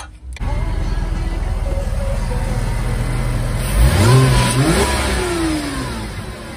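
Porsche 986 Boxster's flat-six engine running, blipped once about four seconds in: the pitch rises, then falls away as the revs drop back.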